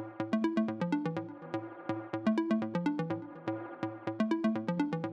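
Background electronic music: a repeating synth riff of short plucked notes over a steady bass line.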